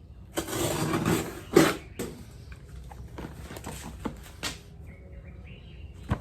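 Rustling and a few sharp knocks from an item being handled and unpacked. The loudest knock comes about a second and a half in.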